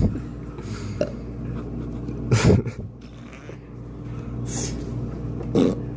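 Steady electrical hum of laundromat machines, broken by a few short noisy bursts. The loudest burst is low and comes about two and a half seconds in; another comes near the end.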